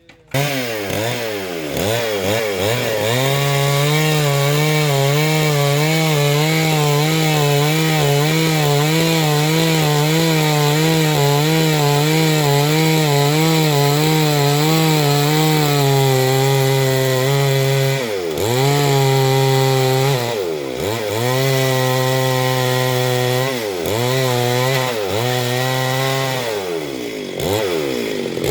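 Two-stroke chainsaw revving up and cutting gamhar wood, its engine pitch wavering steadily under load. In the last ten seconds the engine dips and climbs back several times.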